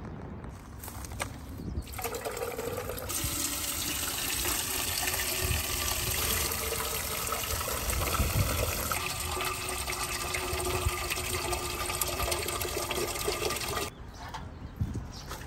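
Water running steadily into a metal watering can and filling it. The flow starts about two seconds in and cuts off suddenly near the end.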